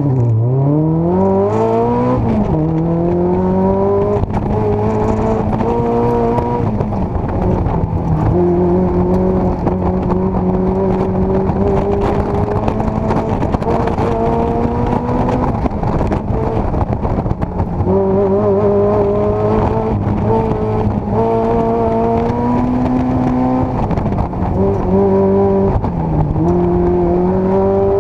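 Mazda Miata's four-cylinder engine accelerating hard from a standing launch, revving up and shifting about two seconds in. It then runs high with its pitch slowly rising and dropping as the throttle is lifted and reapplied, with clear dips near a third of the way in, around two-thirds and near the end.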